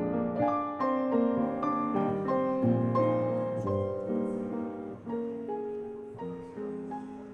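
Background piano music: a slow run of single notes and chords that gradually fades out.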